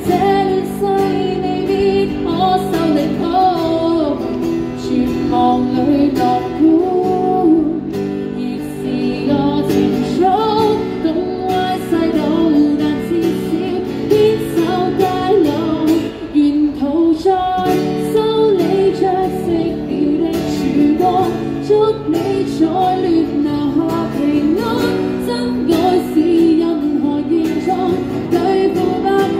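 A woman singing a pop song into a microphone while strumming an acoustic guitar, played through a small street amplifier.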